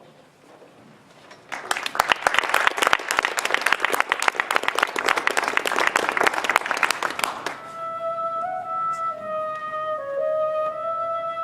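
Audience applauding for about six seconds, then a flute begins playing a slow melody.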